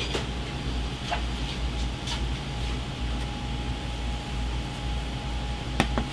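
Steady low mechanical hum of a commercial kitchen, with a faint steady whine. Over it come a few light clicks and knocks, the sharpest near the end as a small ceramic bowl is handled on a stainless-steel counter.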